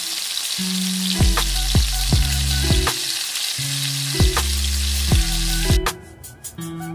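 Chopped onions and spices frying in oil in a steel pot, a steady sizzle as they are stirred. Background music with a steady beat plays underneath, and the sizzle cuts out about six seconds in, leaving only the music.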